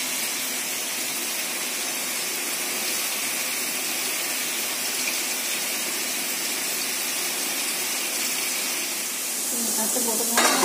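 Steady sizzle of food frying in oil in a pan on a gas stove, a little louder near the end, with a short metallic clatter just before the end.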